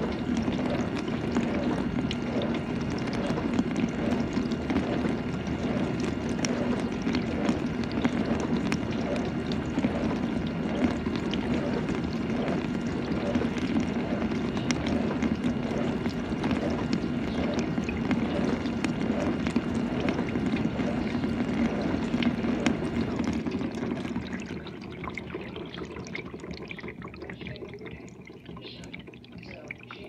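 GE dishwasher running its wash cycle: a steady hum from the pump with water spraying and splashing inside the tub. About three quarters of the way through the sound fades and drops to a much quieter trickle of water.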